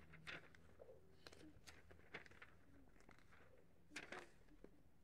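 Near silence with a few faint rustles and flaps of glossy catalogue pages being flipped by hand, the loudest about four seconds in.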